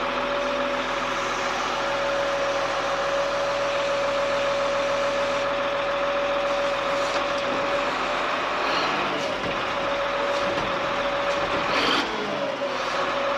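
Changlin wheel loader's diesel engine running steadily with a high whine over it as the lift arms are worked. The whine breaks off about two-thirds of the way through and comes back near the end, with a brief knock just before it returns.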